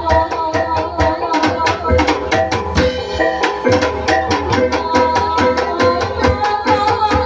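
Live Javanese soreng dance accompaniment: quick, steady drum strokes over sustained ringing metallic tones from gamelan-type instruments.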